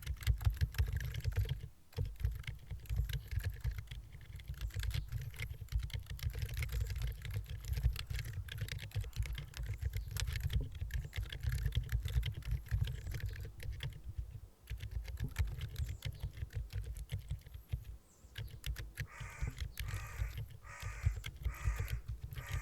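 Continuous typing on a Keyboardio Atreus keyboard with Durock Silent Linear Dolphin 62g switches and MT3-profile keycaps: a fast, irregular patter of damped key presses, pausing briefly three times.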